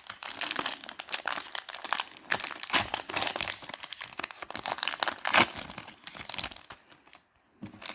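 Foil wrapper of a trading-card pack being torn open and crinkled: a dense run of crackles that fades out about seven seconds in.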